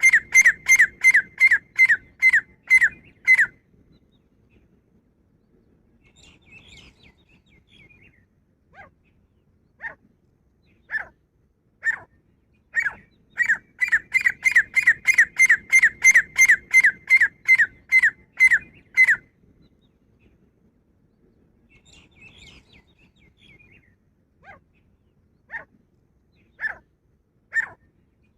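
Female grey francolin calling: a rapid run of sharp, ringing notes at about four a second, then a pause with faint soft chatter, then a few spaced notes that speed up into another run lasting about six seconds, and spaced notes again near the end.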